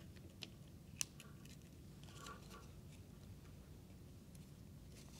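Faint handling sounds of a roll of medium format film and its paper backing being fitted into a camera's film back: a few soft clicks, one sharper tick about a second in, and light rustling of the paper.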